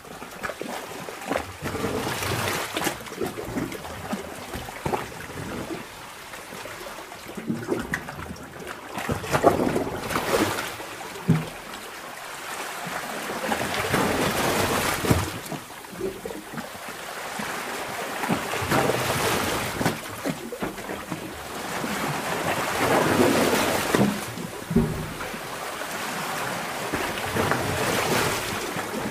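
Sea water surging in a sea cave, heard underwater: a continuous rushing wash that swells and ebbs irregularly every few seconds.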